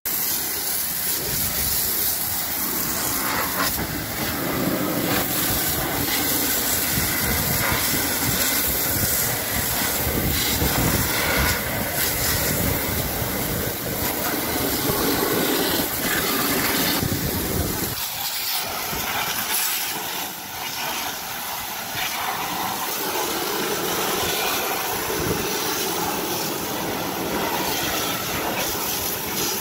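Hard jet of water from a hose spray nozzle hissing steadily as it blasts a car's tyre, wheel and wheel arch, with water splashing off. The sound changes partway through as the jet moves to another part of the wheel, losing its deeper splash.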